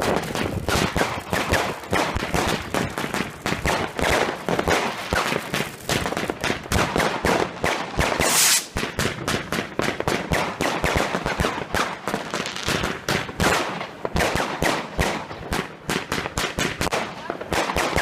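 Fireworks going off in a dense, continuous barrage of sharp bangs and cracks, several a second, with a brief hissing burst about halfway through.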